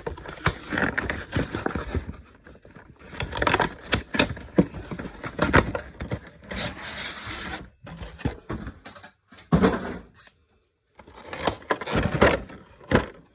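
Pokémon collection box and its packaging being ripped open and handled: irregular tearing, scraping and crinkling, with a short pause about ten seconds in.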